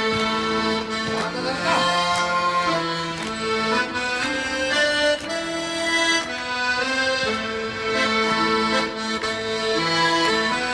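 Instrumental break of a trot ballad played by a band: a reedy melody of held notes over chords, with light regular percussion ticks, and no singing.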